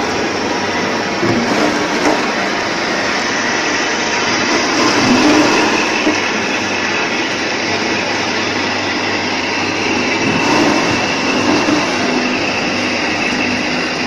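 Single-screw spiral press juicer running, its electric motor and gear reducer turning the screw as it crushes and presses fruit. The noise is loud and steady.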